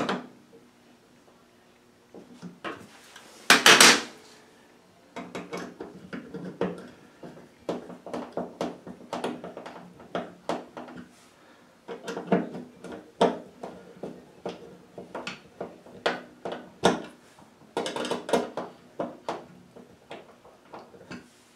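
Hand screwdriver tightening the screws of a stainless steel recessed toilet paper holder: a long run of small metal clicks and scrapes as the screws draw the holder and its rear bracket tight against the wall. A louder clatter of handling comes about three and a half seconds in.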